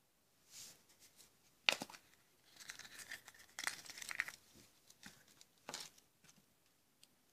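Yellow plastic Kinder Surprise capsule snapping open with a sharp click, then crinkling and rustling as the folded paper leaflet and small toy piece inside are handled, with another short click near the end.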